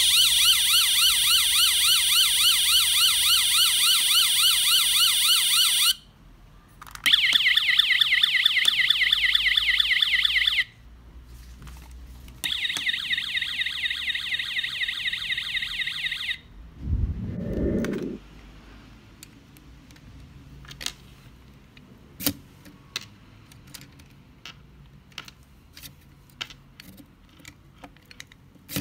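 Electronic siren sounds from die-cast toy emergency vans, set off by pressing the toy's roof button: three fast-warbling siren passages of a few seconds each, with short breaks between them. After them comes a brief low thump, then light clicks and taps of plastic toy parts being handled.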